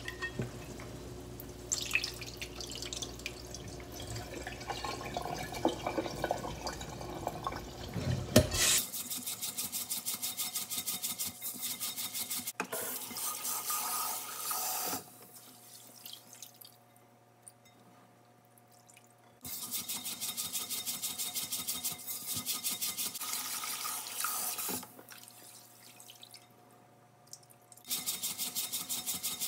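Rice being washed by hand in a rice cooker's inner pot: tap water running into the pot while hands swish, rub and press the wet grains in quick rhythmic strokes, broken by two brief quieter pauses.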